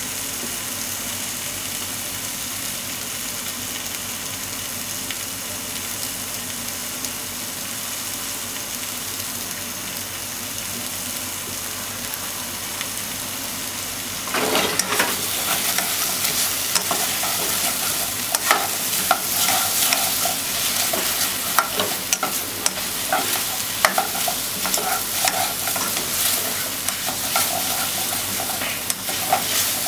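Potato, carrot and onion chunks sizzling steadily in oil in a nonstick pot. About halfway through it gets louder as a spatula stirs and turns them, with repeated scraping and knocking against the pot.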